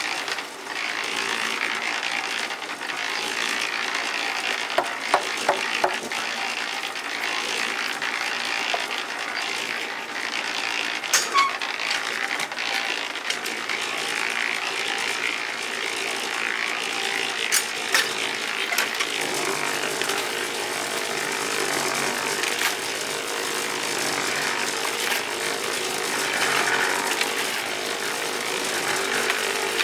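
Continuous scraping and rasping, with a few sharp knocks about five, eleven and eighteen seconds in.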